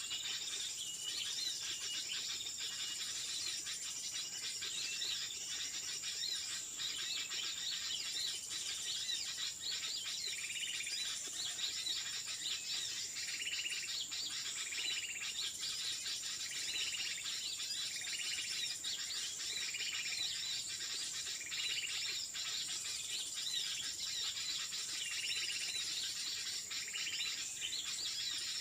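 Forest birds chirping and calling over a steady high insect drone, with one short call repeated evenly about every second and a half from about a third of the way in until near the end.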